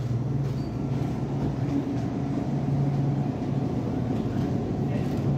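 Steady low machine hum of a supermarket produce aisle, the drone of the store's refrigerated display cases and air handling, over a soft haze of background noise.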